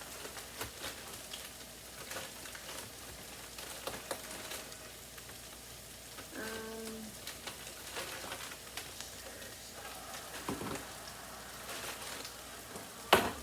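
Onions, mushrooms and potatoes sizzling and crackling as they fry in a pan. A short pitched hum comes about six and a half seconds in, and there is a sharp knock near the end.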